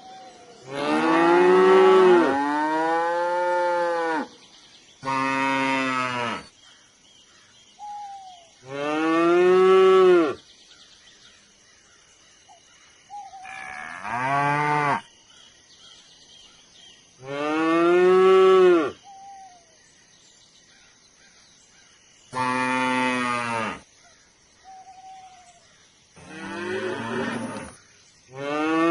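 Cattle mooing again and again: about eight long moos, each one to three seconds, rising then falling in pitch, with a few short faint calls in the gaps between them.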